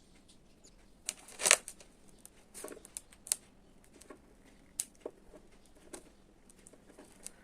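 Scattered small clicks, taps and scrapes of hands working with tubes of two-part epoxy adhesive, squeezing the paste out onto a surface, with one louder scrape about a second and a half in.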